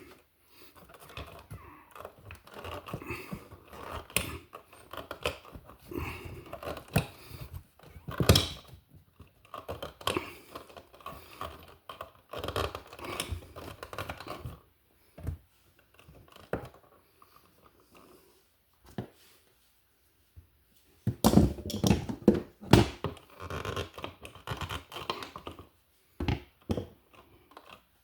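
Insulated copper wires and wire nuts being bent and folded into an electrical box: irregular scratching, scraping and clicking. There is a sharp knock about eight seconds in and a louder spell of handling about twenty-one seconds in.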